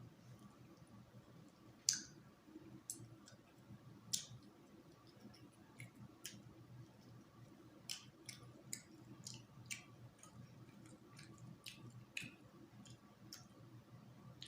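Close-up mouth sounds of eating fish: scattered sharp wet clicks and smacks from chewing, the loudest about two seconds in, over a faint steady low hum.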